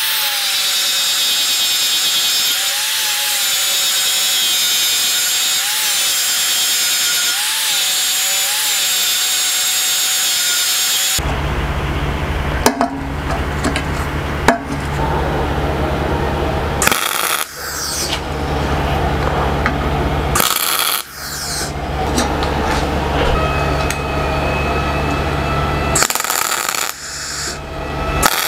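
Corded angle grinder with a sanding disc running against a steel tank, its motor whine dipping briefly as it bites under pressure. About eleven seconds in it stops and a steady low hum with scattered sharp cracks takes over.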